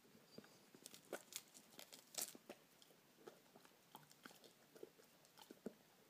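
A rabbit nibbling and chewing a fresh spinach leaf: quiet, irregular crisp crunches and clicks, with a louder cluster about two seconds in.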